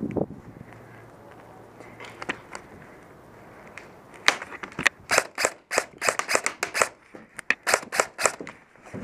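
Airsoft gun firing a quick string of sharp shots, about four or five a second, starting a little past halfway and lasting about four seconds.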